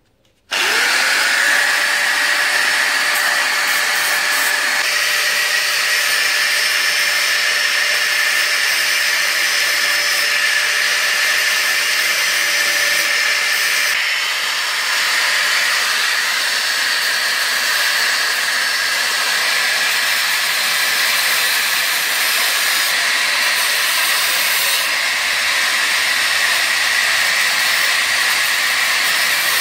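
Power tool spinning up and cutting through a steel motorbike drive chain: a tone that climbs quickly as it starts, then a loud steady grinding hiss of metal being cut.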